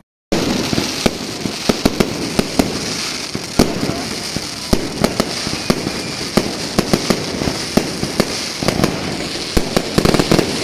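Fireworks bursting overhead in a rapid barrage of sharp cracks and bangs, with crackling in between; it starts abruptly after a brief silence.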